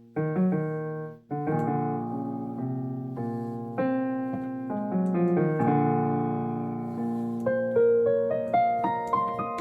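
Piano or keyboard being played: struck chords and notes that ring and fade, ending in a quick run of single notes climbing higher.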